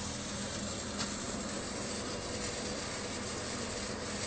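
Steady mechanical whirring of a halogen turbo oven's fan running together with the drill that drives a stirrer through roasting coffee beans, with a single light click about a second in.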